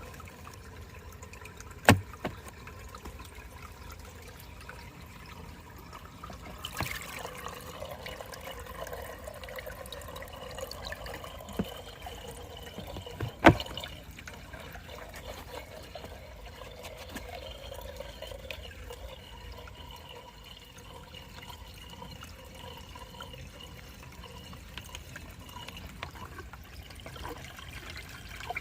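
Aquarium water trickling steadily over a faint steady hum, with two sharp knocks: one about two seconds in and a louder one near the middle.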